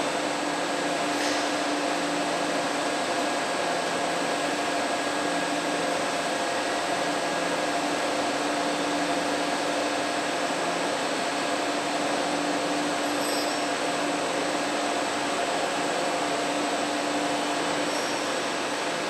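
Steady machine hum of a vertical turning machine cell for railway wheels: an even whirring rush with several constant tones, unchanging throughout.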